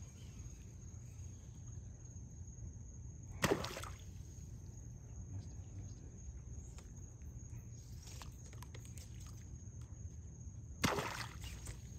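Two sharp splashes in shallow water, about seven seconds apart, from the frog lure slapping and being worked on the surface. Steady high-pitched cricket trilling runs underneath.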